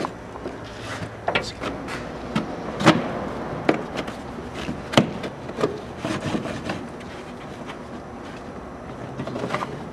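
Trunk trim clips and carpeted side liner of a Mazda Miata NB being worked loose by hand: scattered sharp clicks and knocks among rubbing and scraping of the trim, with a handful of louder snaps.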